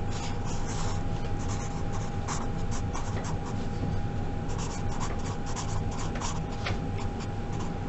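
Felt-tip marker writing on paper: a string of short scratching strokes as letters and a box are drawn, over a steady faint hum.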